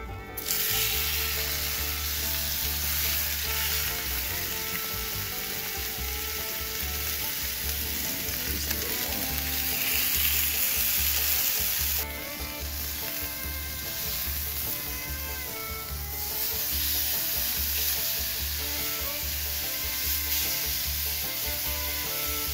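Venison backstrap searing in a hot cast iron pan over a wood fire for a reverse sear: a loud, steady sizzle that starts as the meat goes into the pan.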